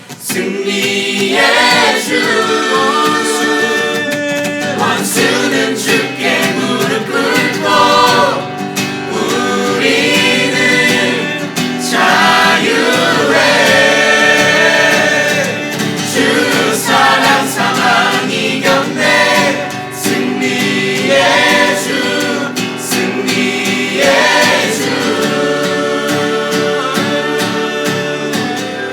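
Several voices of a worship team singing a contemporary Christian worship song together, with instruments underneath.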